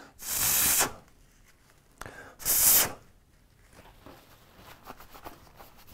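Two strong puffs of breath, about two seconds apart, blown through a laptop heat sink's vents to clear out dust. Faint rustling follows.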